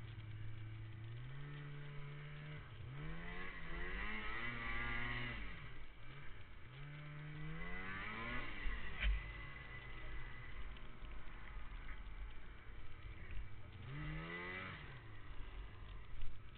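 Snowmobile engine revving up and down, its pitch rising and falling several times, with a sharp knock about halfway through.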